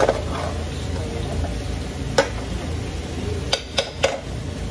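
Slotted metal spoon stirring and lifting rice in a metal pot, clinking against the pot about five times, with three quick clinks close together near the end, over a steady low hum.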